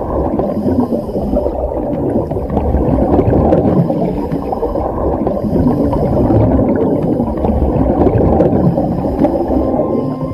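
Muffled underwater rumble recorded among scuba divers, with a faint hiss of bubbling coming back every second or so.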